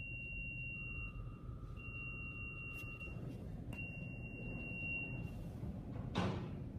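Long, high electronic beeps at one pitch, each about a second and a half, repeating about every two seconds over the low rumble of car wash machinery. Near the end comes a short, loud rushing hiss, falling in pitch, from the wash equipment.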